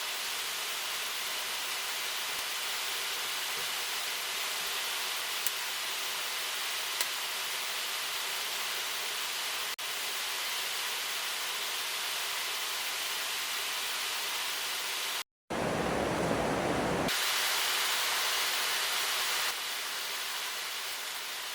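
Steady hiss of background noise with a few faint clicks. It cuts out for a moment about fifteen seconds in, returns louder for a few seconds, then settles back.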